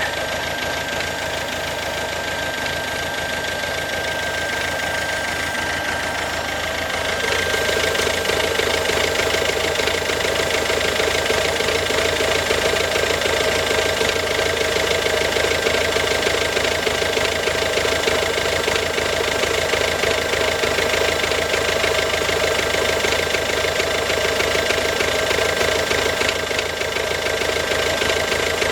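Ford Focus C-Max's 1.6 TDCi turbodiesel engine running steadily with the abnormal 'bad sound' of an engine problem. It grows louder about seven seconds in and then holds steady.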